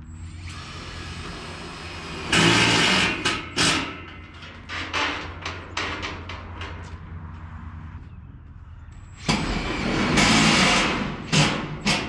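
Heavy sliding barn door's rollers running along an overhead steel track, with loud grinding rumbles about two seconds in and again from about nine to eleven seconds, and smaller knocks between them, over a steady low hum.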